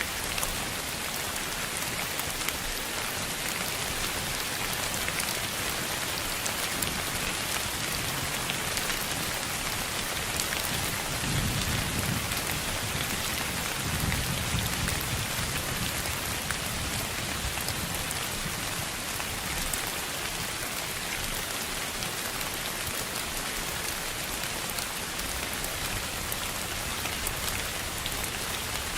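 Steady sleep-sound noise with a rain-like hiss and fine crackle of drops. A soft low rumble swells twice near the middle.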